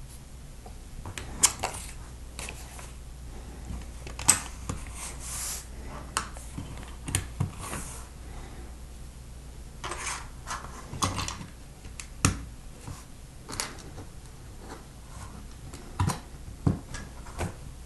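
Plastic LEGO bricks being handled and pressed together on a table: irregular sharp clicks and clacks, a dozen or so, with brief scuffs of handling between them.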